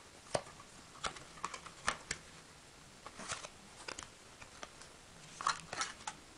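Box and packaging being handled: scattered light clicks, taps and short rustles, a cluster of them near the end.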